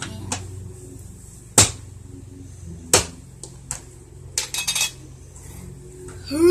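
Two sharp knocks on a tabletop, about a second and a half apart, then a quick run of lighter clicks, from Play-Doh tools and dough being worked on the table.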